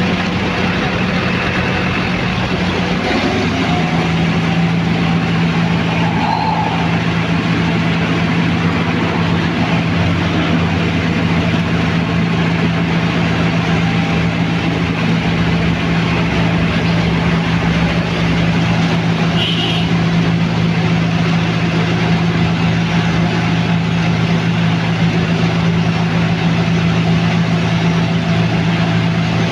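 Cold milling machine's diesel engine running loud and steady under a dense noise. Its hum shifts pitch slightly about three seconds in, then holds.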